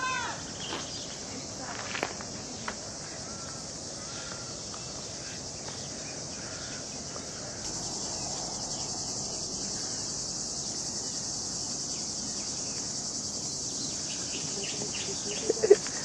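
Steady high-pitched drone of an insect chorus, stepping up in level about halfway through. A few brief sharp sounds near the end are the loudest thing heard.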